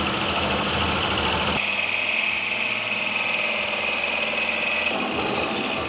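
Hole saw on a drill-driven Notch Master tube notcher cutting a notch into metal pipe: a steady motor whine with the teeth grinding through the tube. A steady high tone comes in about a second and a half in, and the sound changes again near the end.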